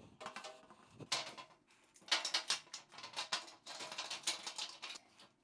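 Corner clamp being fitted over the top corner of two glass shower panels: a run of quick clicks, taps and scrapes as the clamp is handled and set on the glass.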